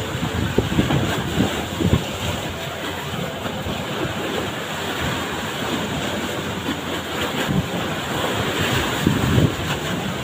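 Rough sea with big waves breaking and washing in against the shore, with strong wind buffeting the microphone in uneven gusts.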